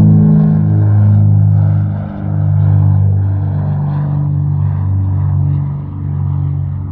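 Propeller airplane engine droning steadily, a low hum that holds its pitch, dipping briefly in level about two seconds in and again near the end.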